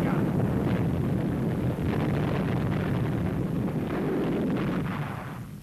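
Low, continuous rumble of naval gunfire and shell explosions, a dense wash of blasts without separate distinct shots, fading out near the end.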